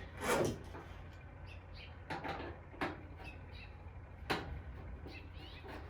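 Metal patio-heater parts and screws being handled during assembly: a handful of sharp clicks and knocks, the loudest just after the start and about four seconds in.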